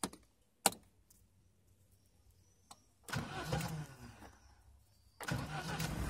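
Clicks of a dashboard toggle switch being flipped, then the Lada Niva's starter motor cranks the four-cylinder engine: a first burst about three seconds in, then cranking again and the engine catching near the end.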